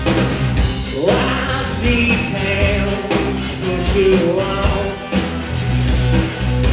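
Rock band playing live: electric guitars, electric bass and drum kit, with a lead vocal.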